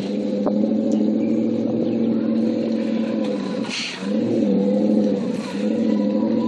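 Maserati Quattroporte V8 exhaust running loud and steady. Its pitch sags briefly about four seconds in, then rises back.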